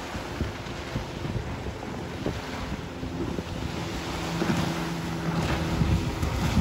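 Outboard motor of a small runabout running at planing speed, growing louder as the boat approaches from about four seconds in. Wind buffets the microphone throughout.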